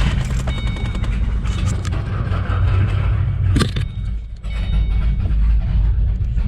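2008 Ford Mustang GT's 4.6-litre V8 running with a misfire on the passenger-side bank, a sound that doesn't sound good at all.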